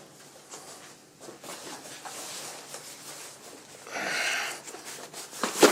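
Cardboard ammunition boxes being handled and shuffled: light rustling and scraping, a louder brush of noise about four seconds in, and a sharp click just before the end.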